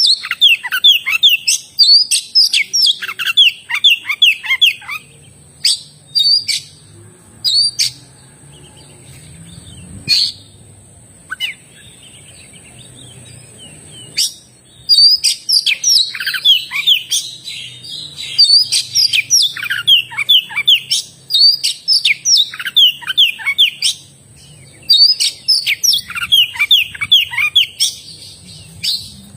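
Oriental magpie-robin (kacer) singing vigorously in rapid runs of falling whistled notes. The song breaks into a few sparse notes and a short pause in the middle, then resumes almost without a break.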